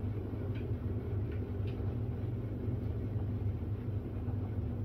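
Tumble dryer running: a steady low hum and rumble.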